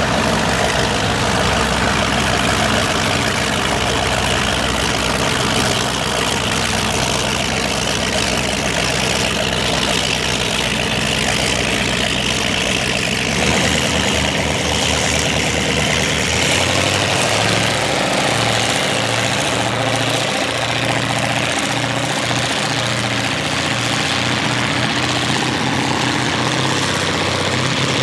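Motion 35 powerboat's engines running, a loud, steady deep engine note. About halfway through, the deepest rumble fades and the pitch shifts as the boat speeds off into open water.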